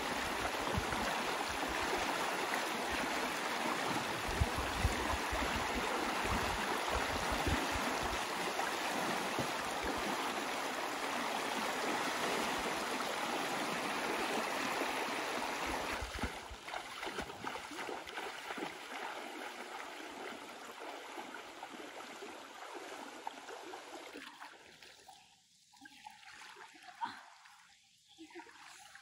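Shallow stream rushing over rocks, with splashing as someone wades through it. About 16 s in the rushing drops to a quieter flow, then thins to occasional small splashes in still water, with one sharper splash near the end.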